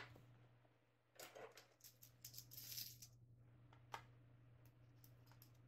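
Faint handling noises of a rubber-cased digital multimeter and a small precision screwdriver being set into its back-cover screw: a few soft rustles and scrapes, then a single small click about four seconds in.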